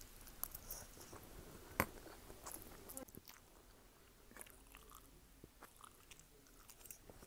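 Faint chewing and mouth sounds of a person eating noodles, with small scattered clicks and one sharper click a little under two seconds in.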